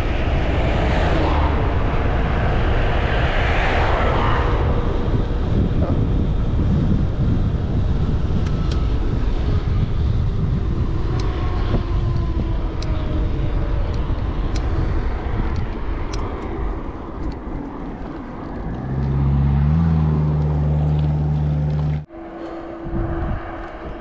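Steady rumbling ride noise: wind on the action-camera microphone mixed with passing motor traffic. A vehicle's engine hum swells a few seconds before the end and cuts off suddenly.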